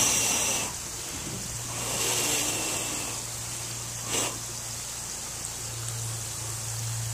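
Hot oil sizzling steadily as french fries deep-fry in a cast iron Dutch oven. The sizzle swells louder at the start and again around two seconds in, with a short knock about four seconds in.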